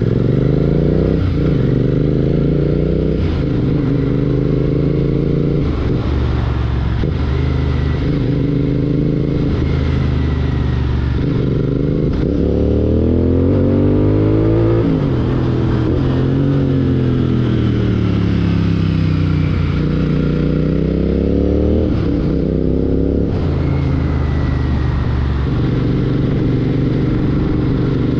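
Royal Enfield Continental GT 650's parallel-twin engine running through a Red Rooster Performance aftermarket exhaust while riding. Revs climb and drop again and again through gear changes, with the engine note falling away about halfway through before it picks up again.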